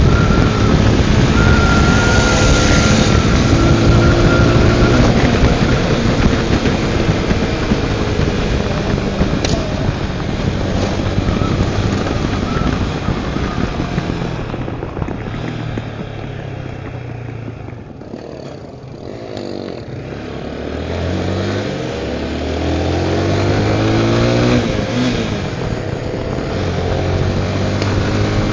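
Honda Tornado 250's single-cylinder four-stroke engine pulling a ride. It revs up at the start, eases off to a low about two-thirds of the way through, then accelerates again in a series of rising sweeps through the gears.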